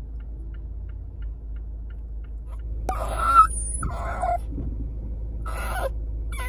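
Car turn signal ticking about twice a second, then a toy poodle whining in three short, wavering-pitched cries from about three seconds in.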